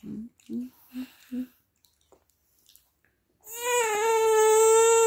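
A few short soft vocal sounds, then about three and a half seconds in a one-year-old girl breaks into a loud wail, one long held cry. It is a toddler's protest cry at having her ice cream cone taken away.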